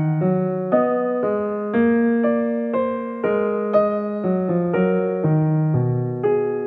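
Background music: a piano playing a gentle melody, about two notes a second, each note ringing and fading.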